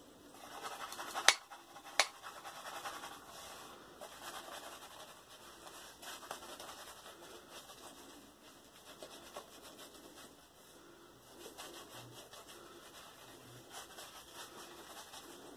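Shaving brush working lather onto a bare leg: a faint, continuous scratchy rubbing of bristles over lathered skin. Two sharp clicks stand out about one and two seconds in.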